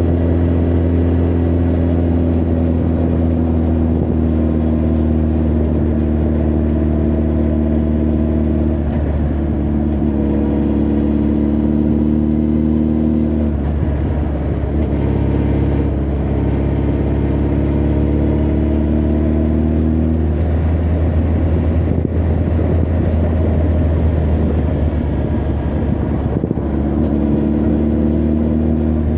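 Honda CB1300 Super Bol d'Or's inline-four engine and exhaust heard from the rider's seat while cruising, running steadily with the engine note changing several times as the throttle and revs shift.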